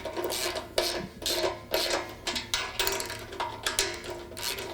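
Ratchet wrench working a 16 mm bolt on the tire carrier, a steady run of ratcheting strokes, about two to three a second.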